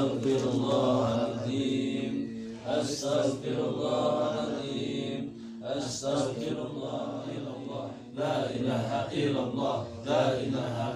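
A group of men reciting Arabic prayers together in a chant, several voices overlapping without a break.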